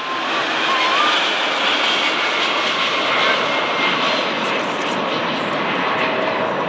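Boeing 757-200 airliner's twin jet engines passing close by as it comes in to land: a loud, steady jet noise that swells about half a second in and eases off slightly near the end.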